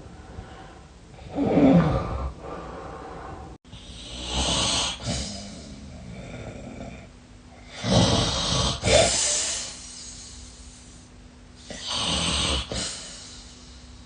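A person snoring deeply and heavily, recorded on a phone by the SnoreLab app. Loud, rough snores come about 2 seconds in and again around 8–9 seconds, with breathier, hissing breaths between them, roughly every three to four seconds.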